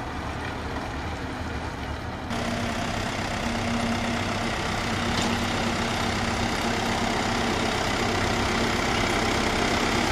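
Diesel engine of a New Holland TD-series tractor idling with a steady hum, a little louder after about two seconds.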